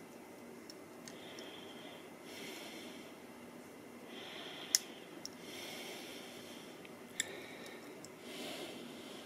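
Faint breathing and small handling noises, with two sharp clicks a little over two seconds apart.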